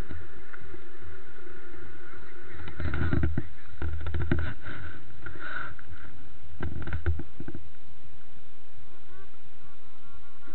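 Jet ski engines idling with a steady drone, with two short spells of rumbling knocks, about three and about seven seconds in.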